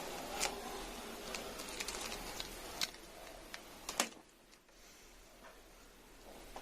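Handling noise: a light rustle with scattered sharp clicks and taps, the loudest click about four seconds in, after which the rustle mostly stops.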